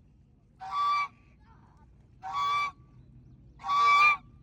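A goose honking three times, evenly spaced about a second and a half apart, each honk short and nasal, the last one the loudest.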